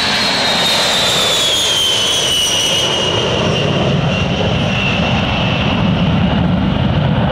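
KC-135 Stratotanker's four jet engines in a very low flyby, loud. A high whine falls slowly in pitch as the tanker passes and moves away, and a low rumble grows stronger in the second half.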